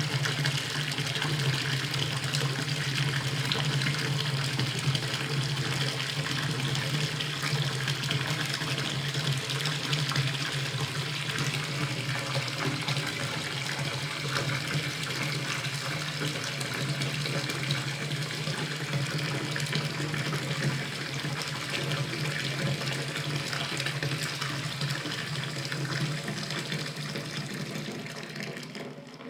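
Water running from a tap into a filling bathtub, a steady splashing rush that fades away near the end as the flow stops.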